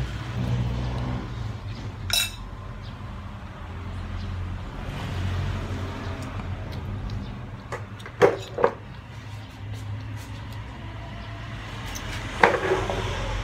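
A metal fork clinking against a ceramic plate a few times: once about two seconds in, twice in quick succession around eight seconds, and once near the end, over a low steady hum.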